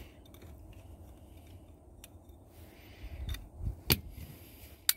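Small plastic clicks and handling noise as a replacement LED circuit board is slid into a BMW F30 footwell light's plastic housing, with two sharper clicks near the end.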